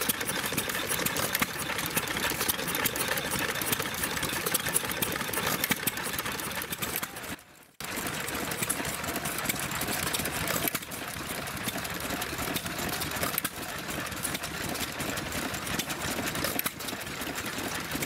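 Vintage stationary engines running with a fast, even mechanical clatter. First a 1926 John Deere engine belt-drives a small water pump; after a brief dropout about seven seconds in, other stationary engines carry on, one of them driving a water pump.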